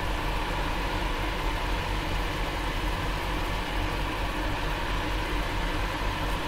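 Steady noise of a pot of butternut squash stew simmering on a lit gas burner, with no breaks or distinct knocks.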